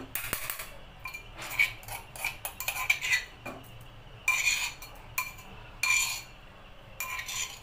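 A metal spoon scraping and clinking against a steel bowl of pounded green chili paste. It comes as a series of short, irregular strokes, each with a brief metallic ring.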